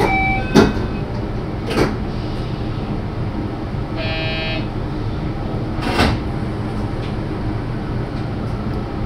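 JR Shikoku 5000-series electric train heard from the driving cab: a steady running rumble with three sharp knocks, and a short pitched tone about four seconds in.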